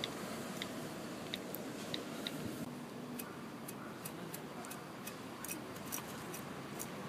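Key clicks from a smartphone's on-screen keyboard as a message is typed: light, irregular ticks, a few a second, over a faint steady hiss.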